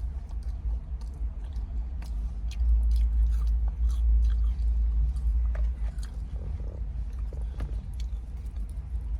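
Close-up chewing and biting of fries, with many small crunches and mouth clicks, over a steady low rumble.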